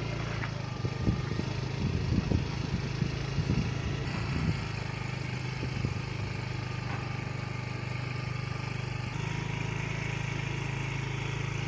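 Motorcycle engine running steadily at low speed while riding, heard from the pillion seat, with a few short thumps over the first four seconds or so; the engine note shifts slightly about nine seconds in.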